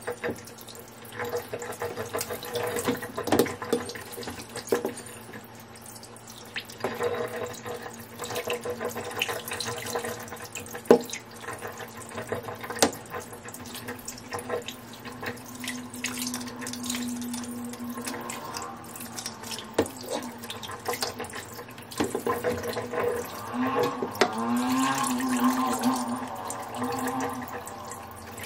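Kitchen tap running into a stainless steel sink while raw chicken is rinsed and trimmed with a knife under the stream, with a few sharp knocks scattered through.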